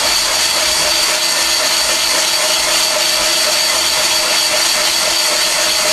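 Van Norman 777 boring bar running steadily, its cutter turning inside an engine cylinder and taking a thin cut off the cylinder wall to bore it oversize. A high steady whine rides over the machine's hum.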